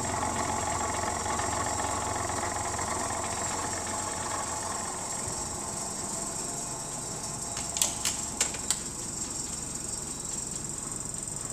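Low rumble of heavy construction machinery working nearby, easing off about halfway through, with a steady high hiss throughout. Near the end, a few quick sharp clinks of dishes rattling as the house shakes.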